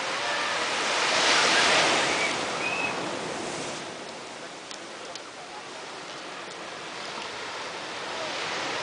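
Small waves breaking and washing up a sandy beach, loudest about a second in, easing off, then building again near the end.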